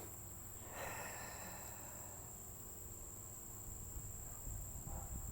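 Crickets chirping: a steady, high-pitched trill that holds without a break.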